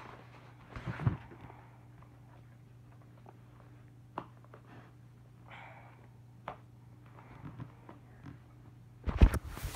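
Handling noise from a camera held with its lens covered: scattered taps, knocks and a brief rustle over a low steady hum, then a cluster of loud thumps near the end.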